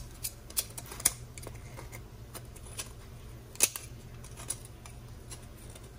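Metal kitchen tongs clicking and tapping against a paratha and the frying pan as it is pressed and turned: a string of irregular sharp clicks, two louder ones about a second in and past the middle, over a steady low hum.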